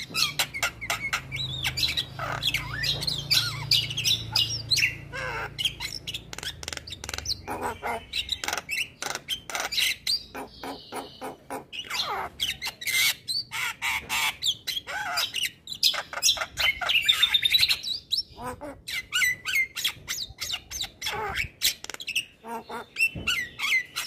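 Male Javan myna (jalak kebo) singing a long, varied run of rapid harsh squawks, chatters and short whistled glides, without a break. A low hum sits under the first several seconds.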